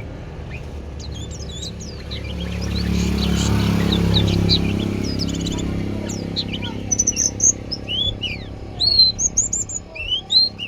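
White-eye (pleci) song: quick, thin, high chirping notes, growing denser and louder into sharp bursts in the second half. A low, steady rumble swells underneath during the first half.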